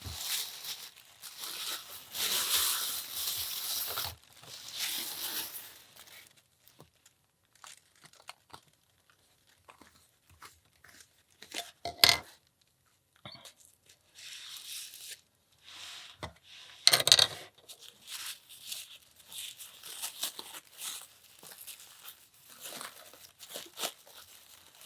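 Packaging being torn open and handled: tearing and crinkling of wrapping for the first several seconds, then quieter handling with small clicks and two sharp loud cracks about twelve and seventeen seconds in, then more rustling.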